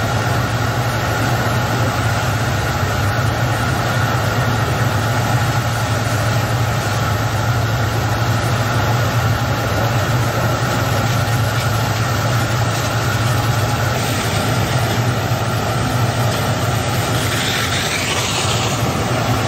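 Coast guard patrol boat's engines running with a steady low drone while its water cannon sprays, under an even hiss. A brief rushing surge of spray rises near the end.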